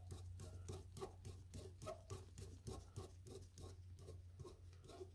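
Large flat-blade screwdriver turning a brass needle seat down into a tractor carburetor's top casting: faint, even clicks and scrapes about four or five a second, thinning out near the end.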